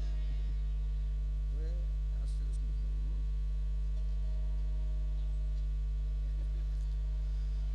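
Steady electrical mains hum through the stage sound system, unchanging throughout, with a faint voice heard briefly about two seconds in.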